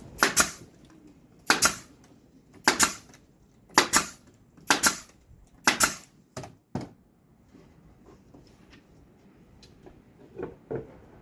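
Brad nailer driving 1-inch brad nails into wood, six sharp shots about a second apart, followed by two lighter knocks.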